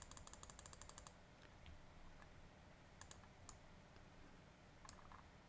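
Computer mouse clicking: a quick run of about ten clicks a second for the first second, then a few single clicks.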